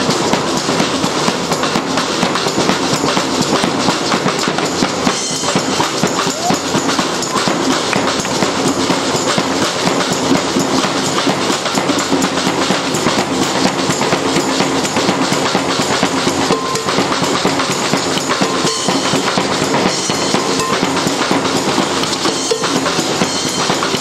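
A fanfare street band playing live, with loud, fast, unbroken drumming.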